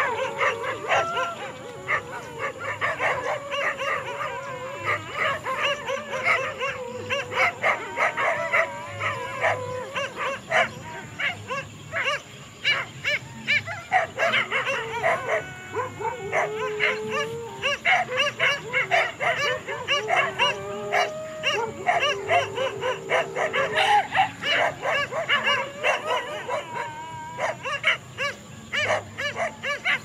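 A group of dogs barking and yapping rapidly and continuously, with drawn-out, wavering cries mixed in.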